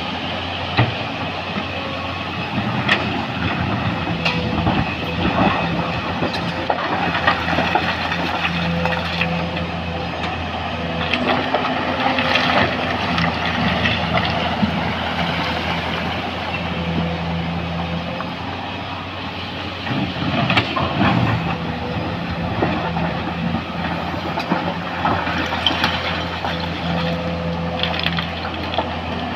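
Heavy quarry machinery running steadily: the diesel engine of a Komatsu PC200 hydraulic excavator and a stone crusher, with frequent knocks and clattering of rock. The clatter is loudest around twelve seconds in and again around twenty seconds in.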